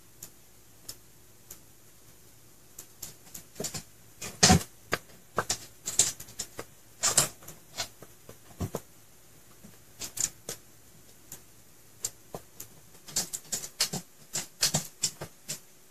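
Irregular small clicks and taps from handling lip makeup as it is applied: lipstick tubes and caps being worked in the hand. They come in two busy clusters, one in the middle and one near the end.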